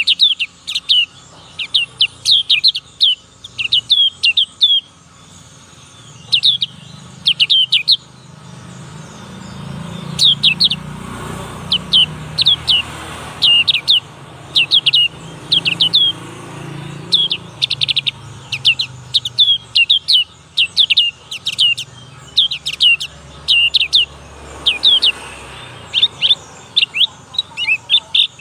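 A young black-capped white-eye singing: fast runs of high, downward-sliding chirps in clusters, broken by short pauses. This is a juvenile still learning its song.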